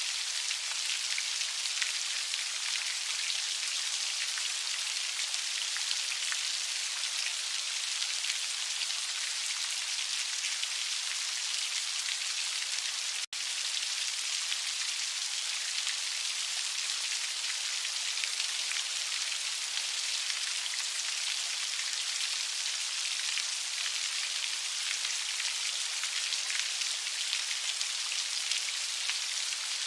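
Heavy rain falling steadily, a dense, even hiss of drops with no let-up. The sound cuts out for a split second about 13 seconds in.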